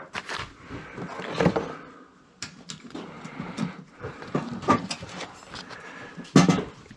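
Objects being handled and shifted about amid clutter: scattered knocks, rustles and clatter, with a louder thump about six seconds in.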